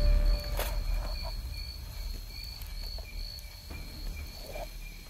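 Night insects, crickets among them, chirping steadily in a high, slightly pulsing drone. A low rumble is loudest near the start, and a few faint clicks come through.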